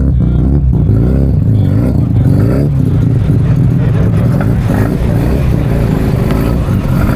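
Mazda rotary engine running loud and revving, its note rising and falling.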